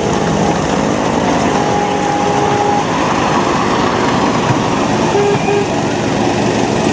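Miniature railway train running past: the small locomotive's engine and the passenger car's wheels rolling on the track make a steady mechanical noise.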